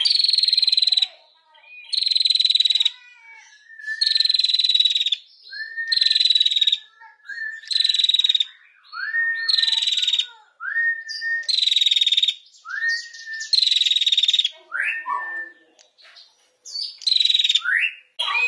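A female prenjak chattering in a repeated buzzy, rattling call: about nine bursts, each about a second long and roughly two seconds apart, with short rising chirps in between.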